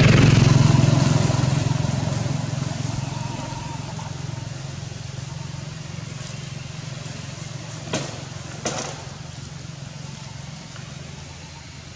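A motor vehicle's engine passing close by, loudest at first and then fading away over several seconds into a steady background hum, with two short sharp knocks near the end.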